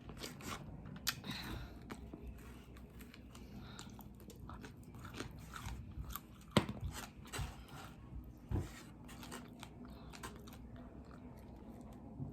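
Close-up chewing and biting into crispy fried chicken wings: many small crunches and wet mouth clicks, with a louder crunch about six and a half seconds in and another about eight and a half.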